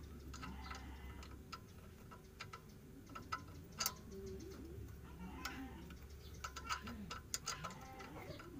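Faint, irregular metal clicks and ticks as a nylon-insert lock nut is spun by hand onto the stud of a Suzuki APV's front stabilizer link. The clicks come in loose clusters, most densely in the second half.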